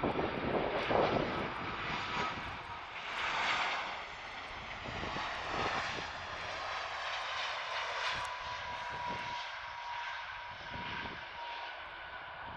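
Jet engines of an Airbus A330-200 freighter arriving at the runway, a loud rushing roar that swells in the first few seconds. A steady high whine comes through in the second half as the roar eases.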